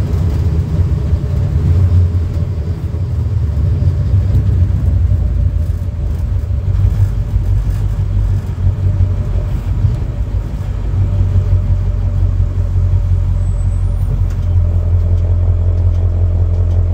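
Caterpillar 3208 turbodiesel V8 of a 1987 Ford C8000 fire engine running with a low, steady drone under way, heard from inside the cab.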